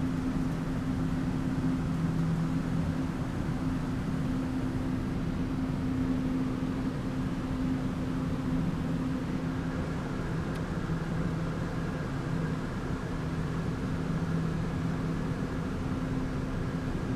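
Steady drone of farm machinery running, with a low hum that fades in and out.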